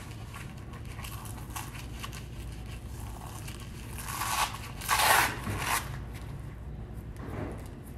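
The hook-and-loop fastener of a waist-trainer belt ripped open in short tearing bursts, the two loudest about four and five seconds in, over a low steady hum.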